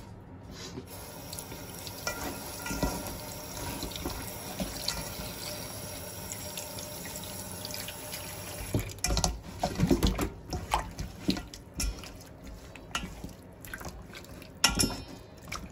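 Water running from a kitchen tap into a metal bowl of flour-coated chicken wings, a steady rush that stops about nine seconds in. It is followed by several knocks and clatters.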